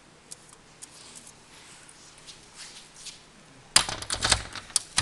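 A puppy's claws ticking lightly on the glass and hard floor of its display pen, then a loud clattering scrabble about three-quarters of the way through as it dashes off, with two more sharp clicks near the end.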